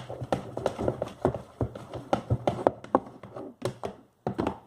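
Slime being stirred in a pot: quick irregular sticky clicks and pops, several a second, with a short pause near the end.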